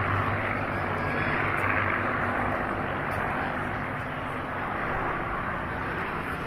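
Steady engine noise of an aircraft in flight.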